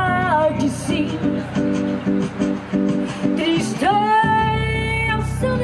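Live music: a woman sings long, wavering notes over a guitar-like plucked accompaniment with a steady bass line. About four seconds in, her voice slides up into a long held note.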